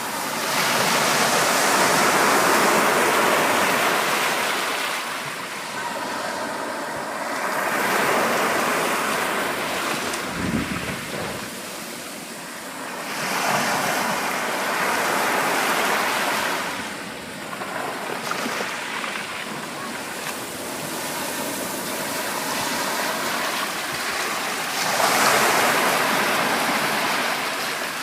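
Ocean waves breaking and washing on a shore, the surf swelling and ebbing in several slow surges, one every few seconds.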